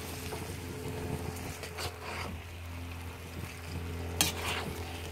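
Lamb and vegetable stir-fry sizzling in a hot wok while a metal slotted spoon stirs and tosses it, with a few louder scrapes against the pan about two and four seconds in. A steady low hum runs underneath.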